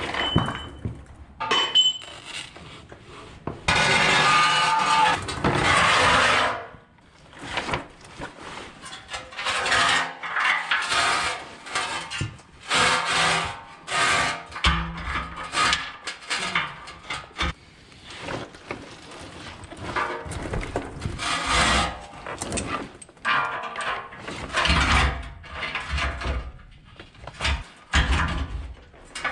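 Metal fabrication work on a Jeep frame: steel pieces being handled, knocked and scraped into place, with repeated clanks and a long hissing burst of cutting or grinding a few seconds in.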